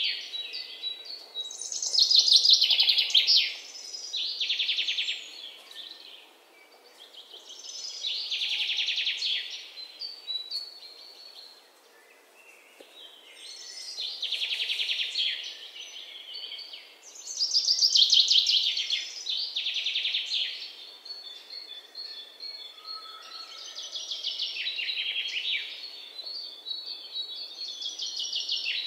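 Birds calling in repeated bursts of rapid, harsh chattering notes, each burst lasting a second or two and coming every few seconds.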